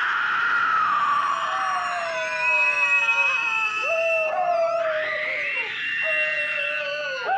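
Several long wailing, howl-like cries overlapping at once, one low and others high, each sliding up and down in pitch.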